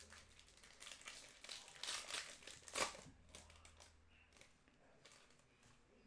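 Foil trading-card pack crinkling as it is torn open, loudest in a sharp rip about three seconds in, then fading to faint rustling.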